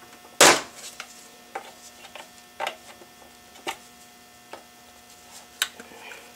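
Hard plastic parts of an AeroGarden clicking and knocking as the pump housing and siphon are fitted back onto the deck: one loud click about half a second in, then scattered lighter taps, over a faint steady hum.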